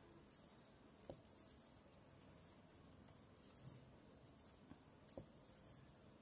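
Near silence with faint soft ticks of knitting needles and yarn as stitches are worked by hand; two slightly clearer clicks come about a second in and again near the end.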